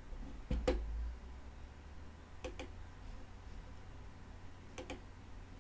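Computer mouse clicking: three faint quick double clicks about two seconds apart, the first with a low thump under it.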